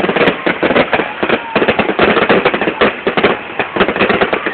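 Fireworks display: a loud, rapid, unbroken string of bangs and crackles.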